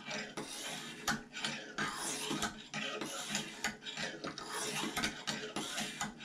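Fine oiled hone of a Lansky guided-rod knife sharpener scraping in short strokes down and across a clamped knife edge, two or three scrapes a second.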